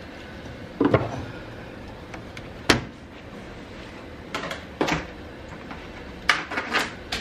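Scattered knocks and clicks of kitchen handling: a single sharp knock about three seconds in, a couple more a little later, and a quick cluster near the end.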